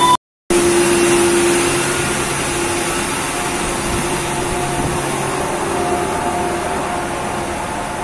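Steady machinery and ventilation hum in a ship's engine room: a broad rush of air with a few steady tones over it. The sound cuts out completely for a moment just after the start.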